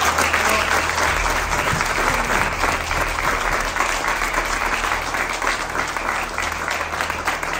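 A crowd of people applauding with steady clapping that eases slightly toward the end.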